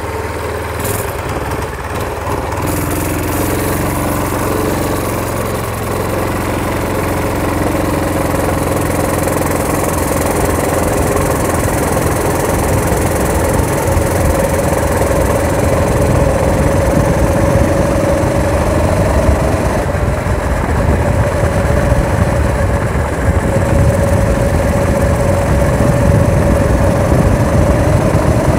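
Motorized-bicycle chopper's engine, fitted with a fiber-packed muffler, running under way as the bike gathers speed, its note rising through the first half and then holding steady. Wind rumble on the handlebar-mounted camera's microphone grows louder with speed.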